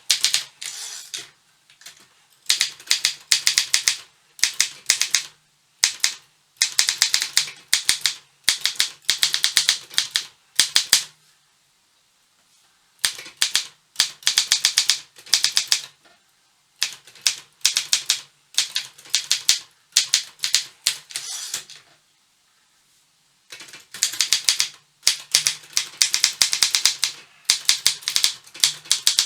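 Optima Elite-3 manual typewriter being typed on: fast runs of sharp key strikes in bursts of a second or two, broken by short pauses, with two longer pauses around the middle of the stretch.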